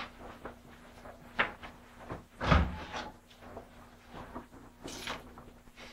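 Scattered light knocks, scrapes and rustles of someone handling papers and moving a chair at a desk, the loudest a thump about two and a half seconds in, over a faint steady hum.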